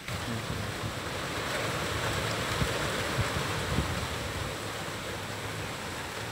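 Dry grass and wood fire burning in a small metal village stove under an aluminium pot. It gives a steady rushing noise with a few faint crackles around the middle.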